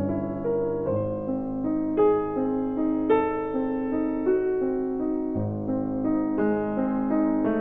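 Background piano music: a slow, gentle melody with chords, a new note or chord about once a second.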